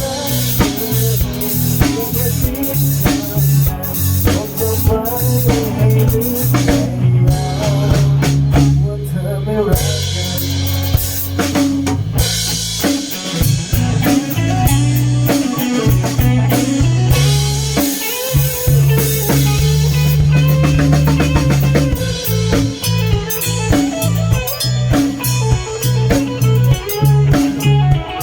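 A band playing an instrumental passage of a song with a drum kit and guitar, without singing.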